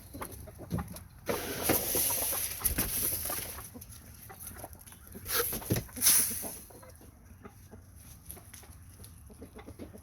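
Chickens clucking around the pen, with a stretch of rustling noise from about one to three and a half seconds in and a couple of louder sudden sounds around five to six seconds in.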